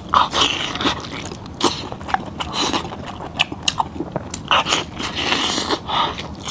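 Close-miked mouth sounds of a person eating goat head meat: chewing and smacking with irregular wet clicks, some louder bites.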